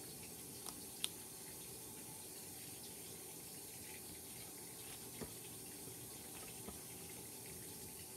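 Steady rush of running water from a washing machine filling, with a few short clicks, the sharpest about a second in, as a hand kneads foam cloud slime on a table.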